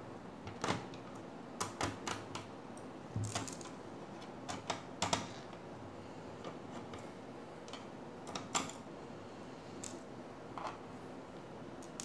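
Irregular small clicks and taps of a hand screwdriver working small screws out of a Dell Inspiron 3576's plastic bottom case, with the odd knock of the case being handled.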